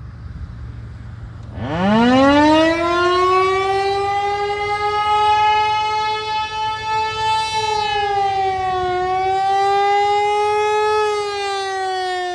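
Whelen WPS 2909 electronic outdoor warning siren starting its steady alert tone. It sweeps up in pitch about one and a half seconds in, then holds a loud, buzzy, near-steady tone, with slight dips in pitch near the end.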